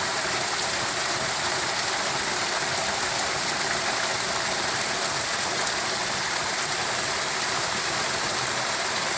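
Steady rushing water, an even hiss with no single splashes or drops standing out.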